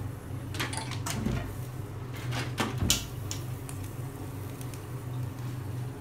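Several knocks and clunks as a whole plucked chicken is handled and stood on a gas stove's burner, the loudest about three seconds in, over a steady low hum.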